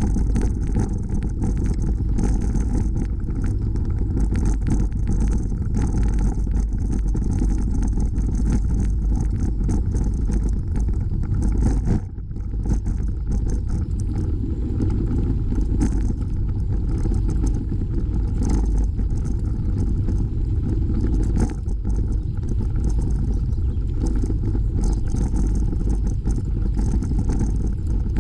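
Steady rumble of wind on the microphone and tyre noise from a bicycle rolling along a dirt and gravel trail, heard from a camera on the bike, with frequent small rattles from bumps in the path. The rumble drops briefly about twelve seconds in.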